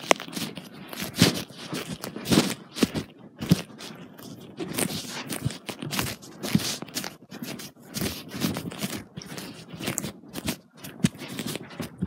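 Footsteps, an irregular run of knocks about once a second, with the scuffing and rustle of a handheld phone camera carried while walking.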